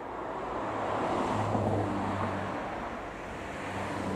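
A vehicle engine running with a low, steady hum under a broad rushing noise that swells about a second in and then eases off.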